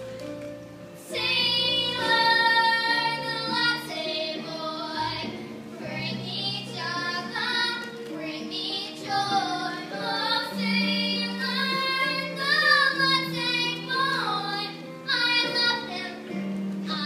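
Young girls singing a comic duet, with an instrumental accompaniment beneath; the singing comes in about a second in.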